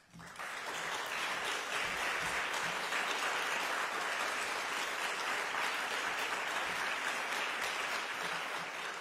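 Audience applause that breaks out suddenly, fills in within about half a second and then holds steady.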